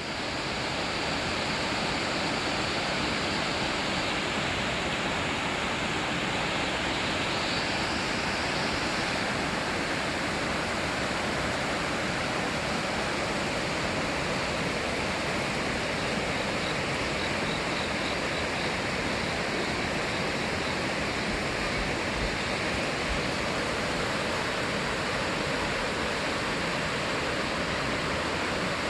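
Mountain valley stream rushing steadily, a full, even sound of flowing water.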